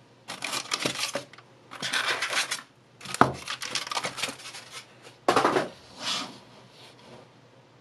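Unpacking a chef's knife from a plastic-wrapped foam block: several bursts of rustling and scraping as hands handle the foam packaging and the knife in its plastic sheath, with a sharp knock about three seconds in.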